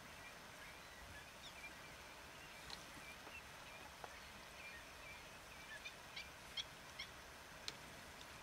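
Pied avocets calling faintly: a run of soft, repeated chirping calls, with a few sharper, higher calls in the second half.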